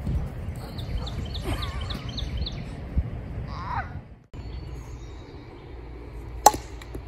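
Wind on the microphone with bird calls, among them a quick run of repeated high chirps. About six and a half seconds in, a single sharp crack of a toy bat hitting a pitched ball.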